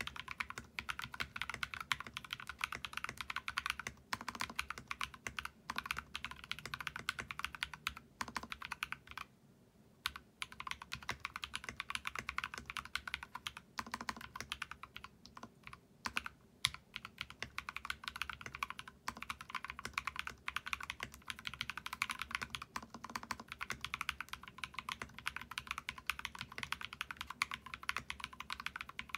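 Rapid, continuous typing on a GK64XS mechanical keyboard with lubed Glorious Panda tactile switches, a foam-modded brass plate, a foam-modded bamboo case and PBT Cherry-profile keycaps. The keystrokes run close together, with one brief pause about nine seconds in.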